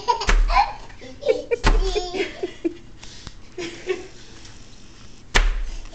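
Bubble wrap popping under a toddler's feet as she is dropped onto it, three times: about half a second in, near two seconds, and near the end. Each is a sharp crack with a thump of landing, and a small child's voice sounds between the first two.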